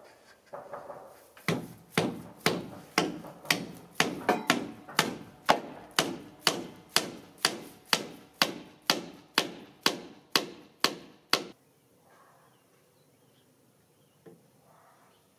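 Hammer blows on the timber roof frame: a few light taps, then a steady run of about twenty sharp strikes, roughly two a second, that stop suddenly about eleven seconds in.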